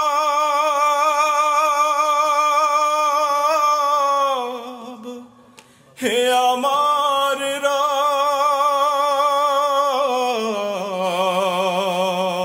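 A voice singing a Bengali Islamic devotional song, holding long drawn-out notes with vibrato. The first note slides down and fades about four seconds in. A second begins about six seconds in and steps down to a lower held note near the end.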